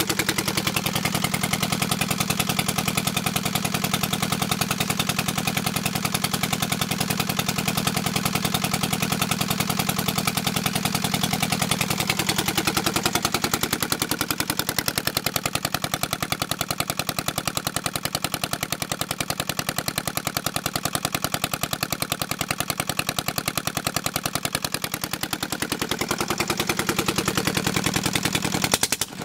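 Old Hangzhou horizontal water-cooled diesel running with no exhaust pipe or muffler fitted: a loud, rapid, machine-gun-like rattle of open-port firing. The engine's running dips a little in the middle and picks up again near the end.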